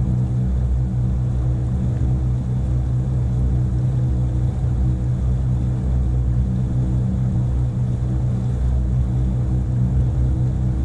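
Motorboat engine running steadily under way, a constant low drone with no change in speed.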